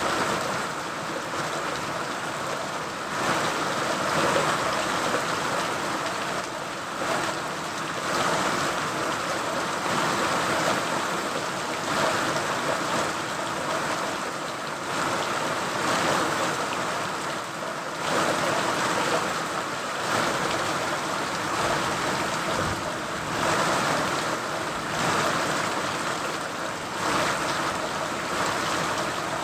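Steady rain falling, a dense even hiss that swells and eases a little every second or two.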